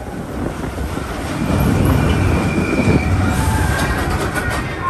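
Expedition Everest roller coaster train rolling on its steel track: a heavy, rattling rumble that grows louder about a second and a half in, with a run of sharp clacks near the end.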